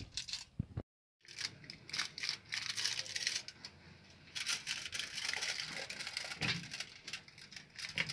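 Aluminium foil crinkling and crackling as it is folded by hand around a soft filling, in irregular rustles full of little clicks, with a short silent break about a second in.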